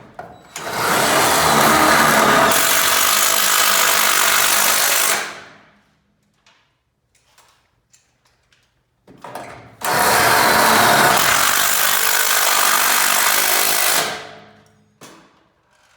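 Cordless power drill running hard in two long bursts of about five seconds each, with a pause between, each winding down as the trigger is let go.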